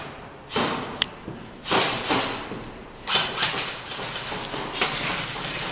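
Four short bursts of rapid clatter and rustle, about a second apart, with a sharp click about a second in, from an indoor airsoft skirmish: replica gunfire mixed with players' rushing footsteps and gear.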